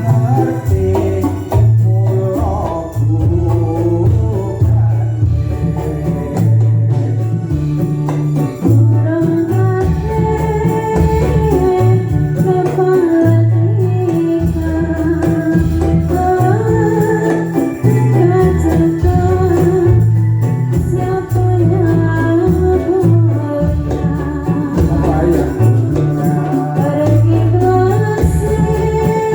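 Dolalak dance music: deep drums and electronic organ keep a steady beat under a sung melody, with jingling and tambourine-like rattles.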